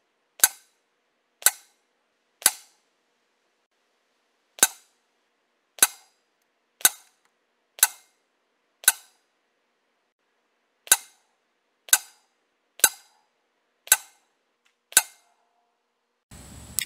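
A low-powered .177 spring-piston airgun firing five-shot groups at a paper target. Thirteen sharp, ringing clicks come about one a second, with a short gap about three seconds in and again about ten seconds in.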